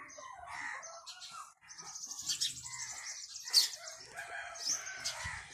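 A domestic chicken calling, with small birds chirping high over it.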